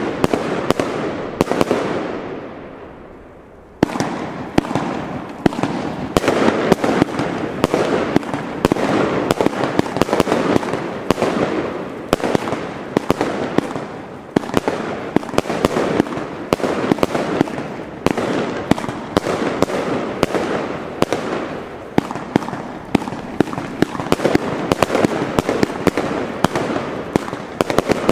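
Consumer firework cake (battery) firing shot after shot: rapid launch thumps and bursting reports over a constant crackle. The firing dies away about two seconds in, then resumes abruptly and runs on densely.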